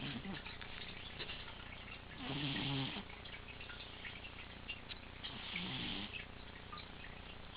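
A domestic cat snoring in deep sleep: two snores about three seconds apart, each a low buzz with a breathy hiss over it. The cat was checked by a vet, who found no breathing problem, so this is a harmless sleep snore.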